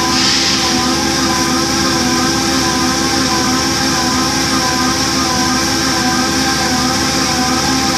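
Air-motor-driven line-boring machine running steadily as its boring bar cuts an engine block's crankshaft main bearing bores, re-boring them because they have gone oval. A steady hum with several held tones and a hiss over it.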